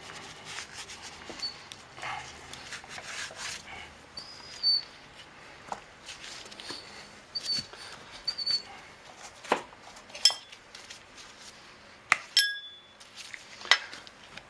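Tire irons working a lubricated tire bead up off a spoked dirt-bike rim: scattered clicks, knocks and short high squeaks, with a metal clink about twelve seconds in that rings briefly.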